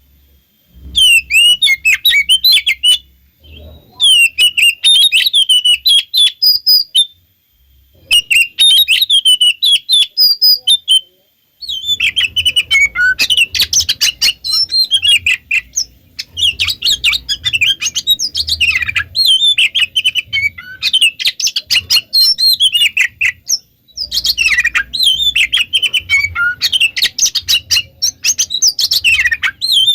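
Oriental magpie-robin (kacer) singing a fast, high, chattering song. It cuts off abruptly into silence a few times in the first twelve seconds, then runs on almost without pause.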